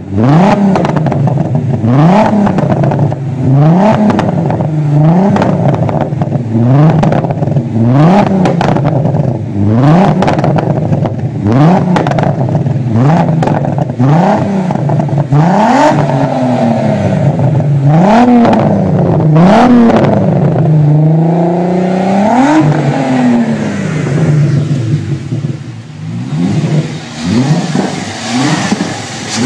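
2000 Volkswagen Jetta VR6's narrow-angle six-cylinder engine revved again and again through its dual-tip exhaust, the note climbing and dropping back every second or two, then settling to idle near the end.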